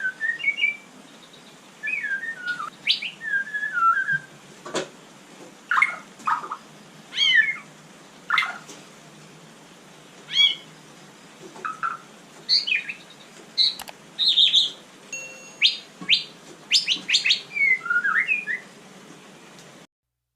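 White-rumped shama singing: a run of varied phrases of clear whistles, rising and falling slurs and short sharp notes, with brief pauses between phrases. It cuts off abruptly shortly before the end.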